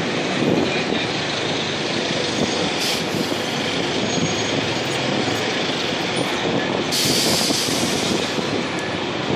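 Steady noise of a busy city street: traffic running past a crowded sidewalk. Two short hisses stand out, about three seconds in and again around seven seconds.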